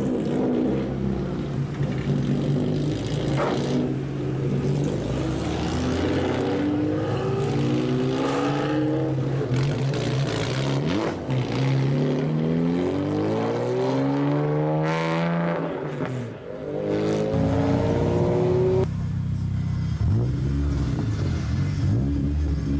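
Engines and exhausts of lowered, modified cars pulling out one after another, running steadily. Partway through, one car revs up in a long rising sweep as it accelerates away, then a short rev blip comes near the end.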